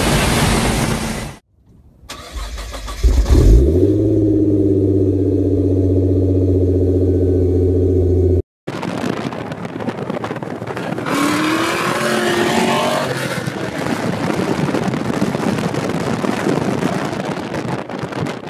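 Car sounds from several clips cut together. First comes a second or so of loud car and road noise. After a short silence an engine revs up about three and a half seconds in and holds at high revs in a steady drone until a sudden cut, and then more car and road noise runs on after a brief silence.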